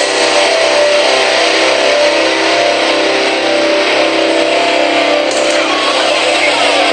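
Loud rock music: distorted electric guitar holding a chord that rings on steadily.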